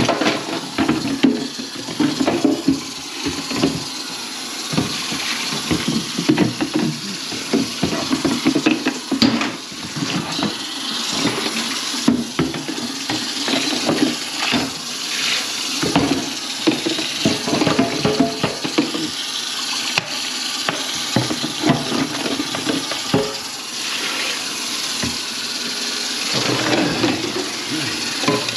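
Water running into a kitchen sink, with splashing and scattered knocks and clatter throughout.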